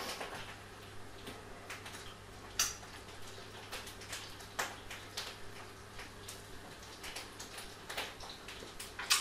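A few scattered soft clicks and smacks from tasting dip off a finger and handling a stick blender, over a faint steady low hum.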